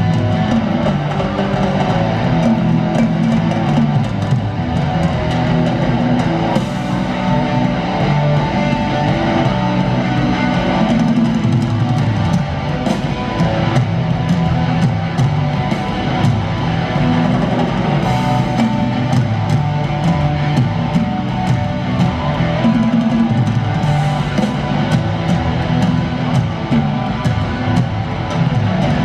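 Live rock band playing loud with distorted electric guitars and a drum kit, an instrumental stretch with no singing.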